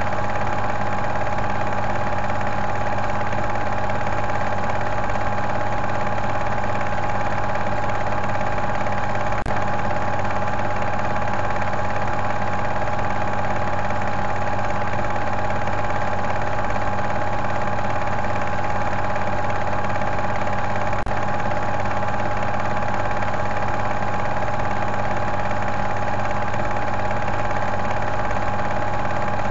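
Film projector running with a steady mechanical whir and clatter, with two faint clicks about ten and twenty-one seconds in.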